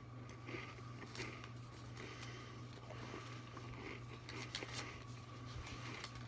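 Faint crinkling and rustling of folded paper slips being handled and unfolded, with a few sharper crackles, over a steady low hum.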